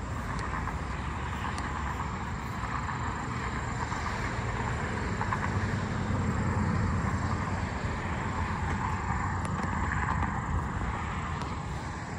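Road traffic going by on a multi-lane road: a steady rush of tyres and engines with a low rumble, swelling as vehicles pass about six and ten seconds in.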